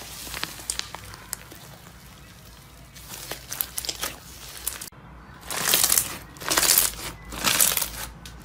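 Slime being squeezed and pressed by hand, crackling and crunching. Faint scattered pops come first, then, about five seconds in, louder crunchy squishes repeat roughly once a second.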